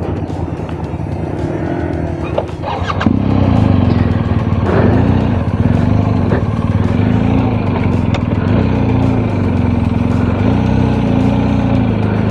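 Motorcycle engine running on a dirt trail, getting louder about three seconds in, with its revs rising and falling repeatedly. A few brief knocks come through near the start and around five seconds in.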